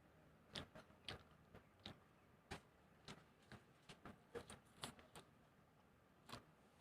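Faint eating sounds: soft, irregular clicks and smacks of chewing, about two a second, pausing briefly near the end.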